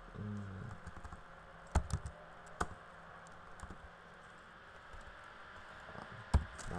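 Computer keyboard keystrokes, sparse and irregular: a handful of sharp key clicks, the loudest near two seconds in and again near the end, as code is deleted with the backspace key.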